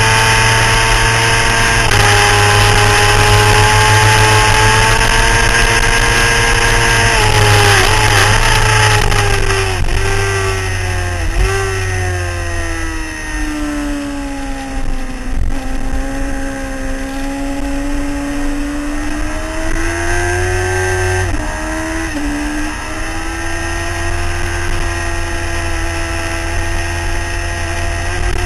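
Sport motorcycle engine heard from on board at speed, with a steady rush of wind. It holds high revs, drops in several quick steps as the rider downshifts into a corner, sinks lowest mid-corner, then climbs again as the throttle opens, with a brief dip during an upshift later on.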